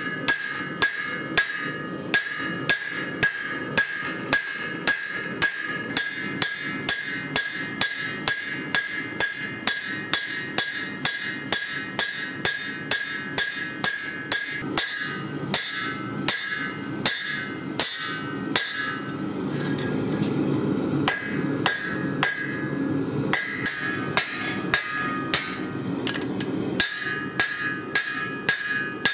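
Hand hammer striking red-hot lawnmower-blade steel on an anvil, forging it into a cleaver: steady blows about two a second, each with a ringing note from the anvil. A low rushing noise swells for several seconds past the middle.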